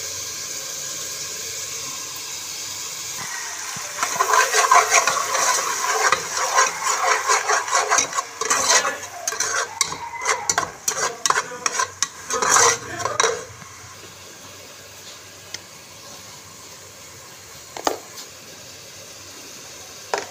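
A metal slotted spoon scrapes and clatters against an aluminium pot, stirring masala frying in oil. The stirring starts about four seconds in and runs for about nine seconds. Under it and after it the oil sizzles steadily, with an occasional single knock of the spoon.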